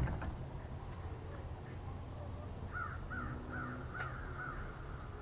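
A bird calling in a quick run of about six short, repeated calls starting about halfway through, over a steady low rumble.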